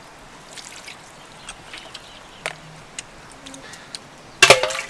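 Sounds of eating: chewing and scattered small clicks of a spoon in a ceramic bowl of fish paste sauce, with one short, loud, sharp sound near the end.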